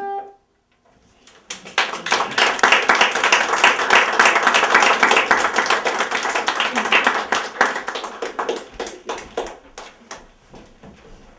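An accordion's last held chord cuts off; after a brief pause an audience applauds, quickly building to full clapping and then thinning out into scattered claps near the end.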